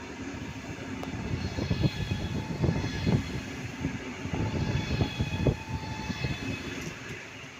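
A train passing on station tracks: its wheels knock irregularly over rail joints and points, with a high steady whine above. The sound builds toward the middle and eases off near the end.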